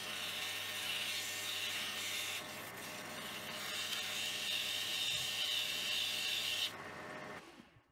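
Abrasive cloth rubbing on a cold-rolled steel bar spinning in a metal lathe, a steady hiss over the low hum of the lathe, polishing the turned bar to size. The hiss eases briefly about two and a half seconds in and stops about a second before the end.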